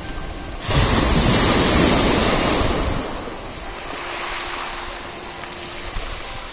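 Sea surf breaking and washing up over stone slipway steps and a pebble beach. A sudden loud rush comes about a second in, then eases after about two seconds into a lower, steady wash.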